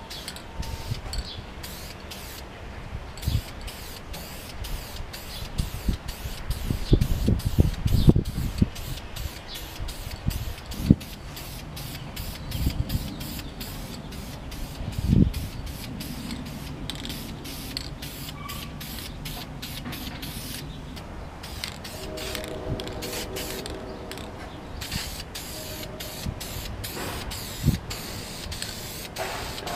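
Aerosol can of sealer primer spraying in repeated short hisses, broken by many brief pauses, with a few low thumps in between.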